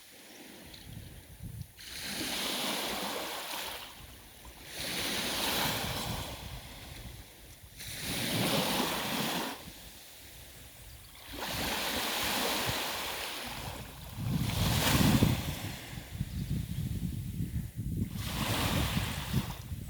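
Sea waves washing onto the shore, each wash swelling and fading about every three seconds. A low rumble of wind on the microphone comes in during the later part.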